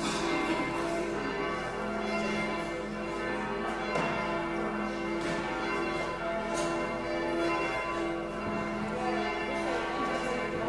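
Church bells ringing together before the service, strike after strike overlapping while the tones hang on.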